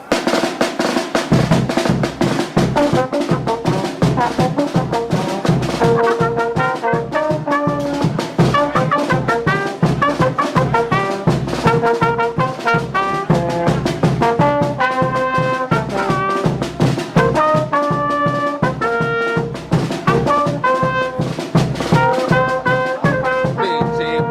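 A fanfarra of trumpets, trombones and marching drums playing a fast frevo: a brass melody over a rapid, steady drumbeat. The drums come in about a second in.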